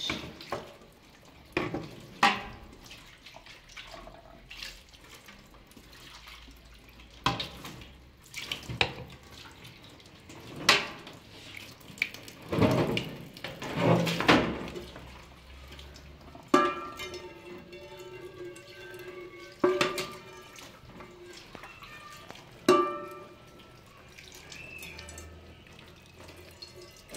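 Tap water running and splashing as a plate and a metal frying pan are rinsed at a steel kitchen sink, with sharp clinks and knocks of dishes against the sink and drainer. Soft background music with held notes comes in a little past halfway.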